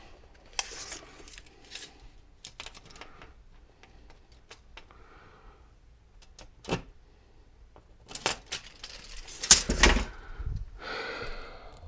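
Scattered light taps and clicks against a wall while searching for the edges of a stud, with a sharp knock about seven seconds in and a louder cluster of knocks near the end.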